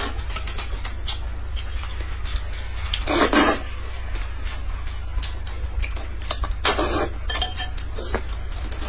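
Eating sounds: noodles slurped noisily twice, about three seconds in and again near seven seconds, amid light clinks of chopsticks and a spoon against bowls.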